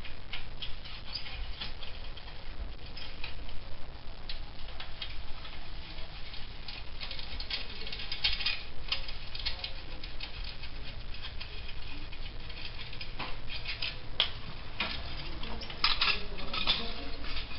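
Ratchet wrench clicking in short, irregular runs while the muffler mounting bolts of a Harley-Davidson Softail exhaust are loosened, with small metal tool knocks against the exhaust. The clicks are densest about eight seconds in and again near the end.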